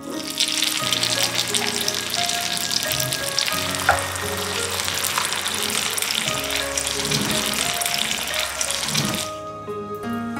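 Five-spice meat rolls wrapped in bean curd skin deep-frying in oil on high heat, a dense steady crackling sizzle; this last high-heat fry before lifting them out is meant to drive out oil so the rolls are less greasy. The sizzle cuts off suddenly near the end.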